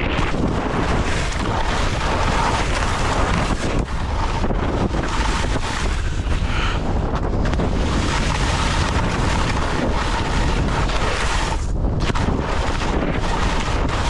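Heavy wind buffeting the microphone of a skier's camera during a fast downhill run, mixed with the hiss and scrape of skis on soft, chopped-up spring corn snow.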